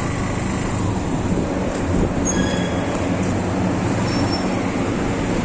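Motorbike engine running at low riding speed, with wind and road rumble on the bike-mounted microphone. A few faint short squeals come about two seconds in.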